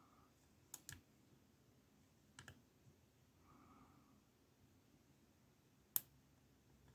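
Small clicks of a lock pick and tension wrench working in a 20 mm Amtech padlock: a double click about a second in, another about two and a half seconds in, and a sharper, louder click near the end.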